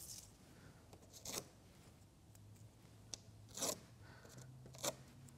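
Pieces of paper being pulled off from around a car headlight: four short, faint crinkling rustles at uneven gaps.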